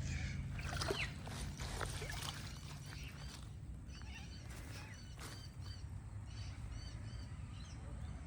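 A few sharp splashes and knocks of a net working in shallow water in the first two seconds, then a bird calling with a run of short, repeated high chirps.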